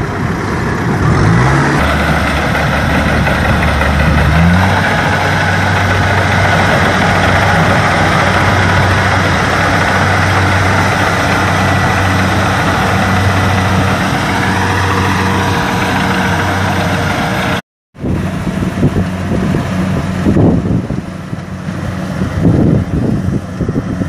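Kubota DC-70 rice combine harvester running under load, its diesel engine and threshing machinery droning steadily; the engine rises in pitch about four seconds in, then holds. After a short break near the end the machine is heard from farther off, with gusts of wind on the microphone.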